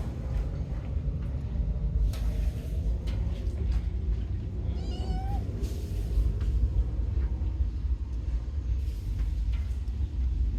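A kitten meows once, a short call of about a second halfway through, over steady low background rumble.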